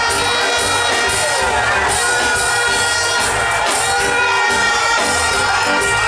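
Music with long held chords playing over a stage sound system, with a crowd cheering and shouting under it.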